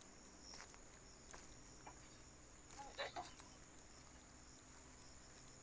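Faint footsteps of sneakers on a grassy dirt trail, over a steady high-pitched insect drone. A brief louder sound comes about three seconds in.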